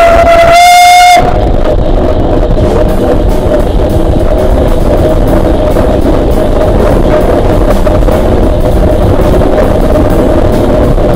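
A steam locomotive whistle blows, ending about a second in, and background music with drums then takes over.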